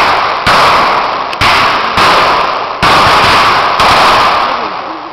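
Single gunshots from blank-firing firearms, about five loud bangs at irregular intervals roughly a second apart, each with a long echo trailing off.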